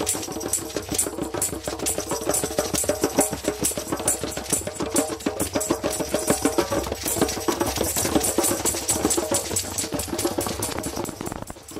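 Hand drum circle: a djembe and several frame drums struck by hand together in a fast, steady rhythm, with bright jingling or clicking percussion on top.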